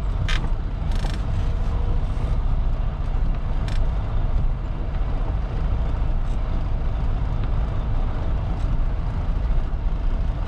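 Diesel engine of a Freightliner Cascadia semi-truck running steadily as the truck manoeuvres slowly, heard from inside the cab. A few short, sharp clicks or hisses come in the first four seconds.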